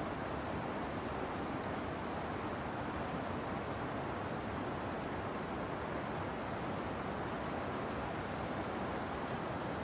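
River water rushing in a steady, unbroken wash that cuts off suddenly at the end.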